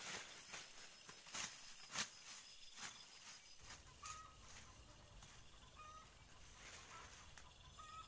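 Dry leaf litter and twigs rustling and crackling as hands work the forest floor, the loudest snap about two seconds in. The crackling dies away and a few short bird chirps follow.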